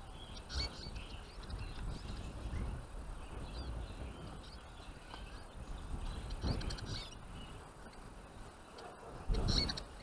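Small finches, Eurasian siskins among them, calling with scattered short, high chirps. Dull low bumps come underneath, the loudest near the end.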